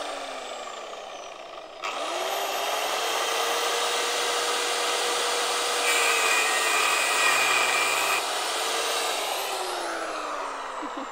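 Corded angle grinder with a cutting disc. It is winding down, is switched back on about two seconds in and runs up to speed, then bites into a steel bolt clamped in a vice for about two seconds around the middle. After that it is switched off and winds down, the pitch falling.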